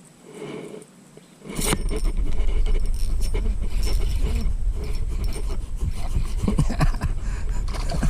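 Loud clattering and scraping handling noise close to the microphone, with many irregular clicks and a heavy low rumble, starting suddenly about a second and a half in.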